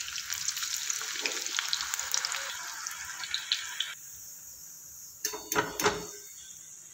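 Onion bhajis deep-frying in hot oil: a steady crackling sizzle that stops abruptly about four seconds in. A few short knocks follow as the wire skimmer lifts the fritters out and drains them over the pan.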